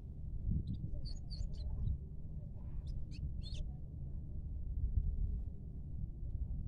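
Caged goldfinch giving a cluster of short, high chirps over about three seconds, over a steady low rumble.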